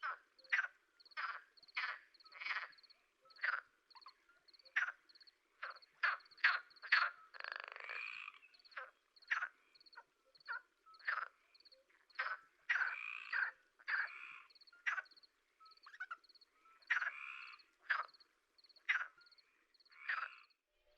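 Animal calls at a pond: a string of short croaking calls, about one to two a second, with a few longer rasping calls among them, over a faint, high, steady chirping.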